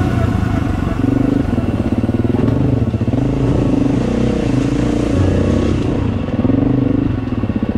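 Dirt bike engine, heard from the rider's seat, its revs rising and falling over and over as the throttle is worked on and off along a trail.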